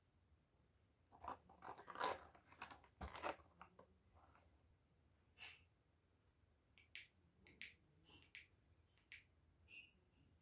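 Paper and cardboard being handled: a burst of crinkling and clicking about a second in, followed by a few separate light clicks later on.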